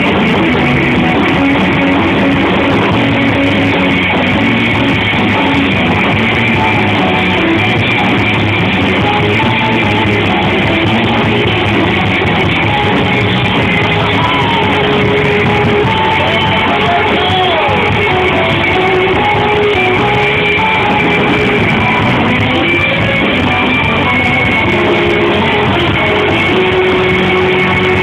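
Live rock band playing steadily and loud, with electric guitars over a drum kit, recorded on a phone.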